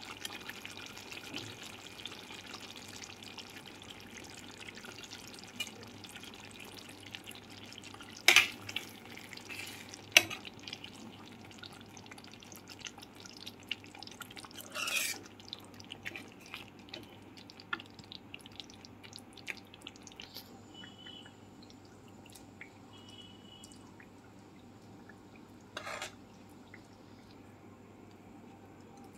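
Chicken curry simmering in a pan, a soft steady sizzle and bubbling that grows fainter toward the end. A metal spoon stirring it knocks sharply against the pan a few times, loudest about eight and ten seconds in.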